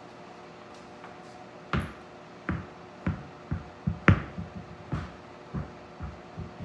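A run of light knocks and taps that come quicker and quicker, with one sharper knock about four seconds in and smaller taps after it.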